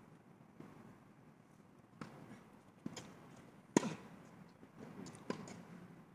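Tennis rally: about five sharp knocks from the ball being struck by rackets and bouncing on the court, at uneven spacing, the loudest a little past halfway.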